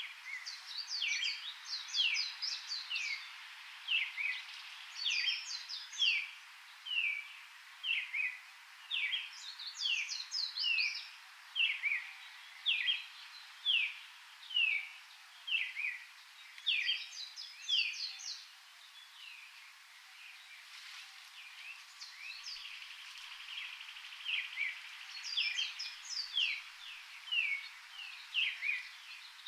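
Birds singing in a tropical forest: a run of short downward-sliding whistled notes, about one a second, with quicker high chirps above them. The song pauses for a few seconds past the middle, then starts again.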